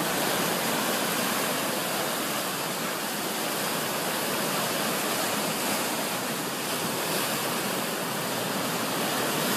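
Steady rushing of sea waves and surf, an even hiss with no breaks.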